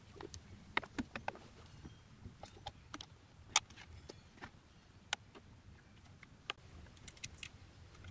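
Scattered light metallic clicks and taps as ring-terminal cable lugs, lock washers and nuts are fitted and tightened onto a power inverter's terminal studs, at irregular intervals.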